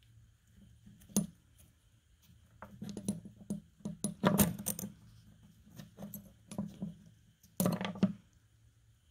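A metal ferrule and guard being worked along and off a rusty knife tang by hand: irregular metallic clicks and short scrapes, with the loudest bursts about four seconds in and near the end.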